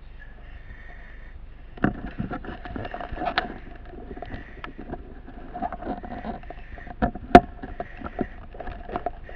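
Firefighter's footsteps climbing a wooden staircase, with irregular knocks and thuds of boots and gear on the steps and banister starting about two seconds in. The loudest knock comes near the end.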